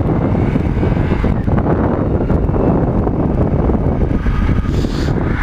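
Dirt bike engine running while riding, largely covered by steady wind rushing over the microphone.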